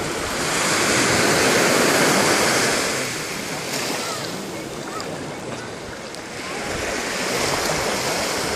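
Small waves breaking and washing up a sandy beach in a steady surf noise, swelling louder about a second in and again near the end.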